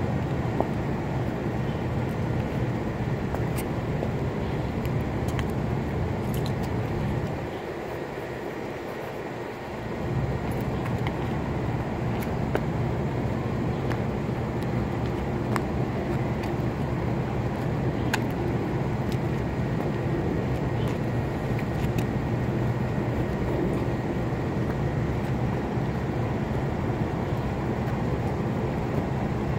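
Steady outdoor background noise with a low rumble, with a few faint clicks. It drops away for a few seconds about seven seconds in, then returns.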